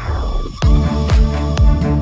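Background electronic dance music: a falling sweep in the first half-second, then a steady beat at about two beats a second.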